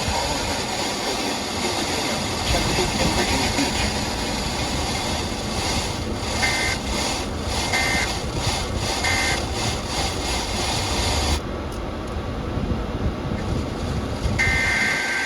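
Radio static hissing under Emergency Alert System data tones. Three short two-tone digital screeches come about a second apart, the pattern of an end-of-message code. The static then thins, and a longer two-tone screech begins near the end, the header of a new alert.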